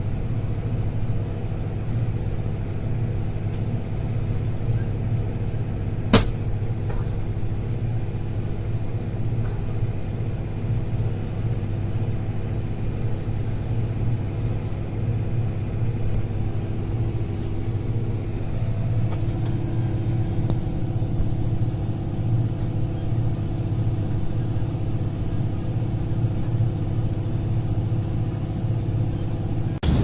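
A large engine running steadily with a low rumble. There is a single sharp click about six seconds in, and a steady higher hum joins about nineteen seconds in.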